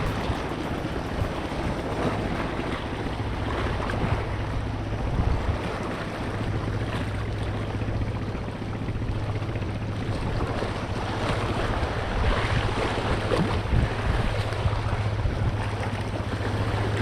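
Sea surf washing with wind blowing across the microphone, over a steady low rumble.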